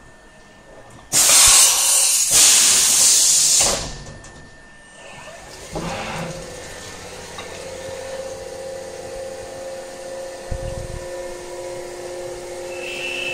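CNC milling machine starting its cycle: a loud hiss lasting about three seconds, then the spindle running with a steady whine made of several tones, a higher tone joining near the end.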